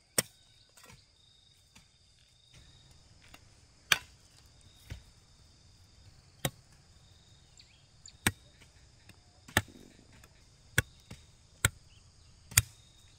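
Chopping with a blade: about nine sharp, separate blows, the first followed by a pause of a few seconds, the rest coming about a second apart. Insects buzz steadily underneath.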